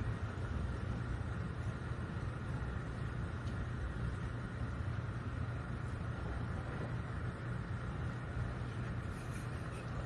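Steady low engine rumble with a faint constant whine above it.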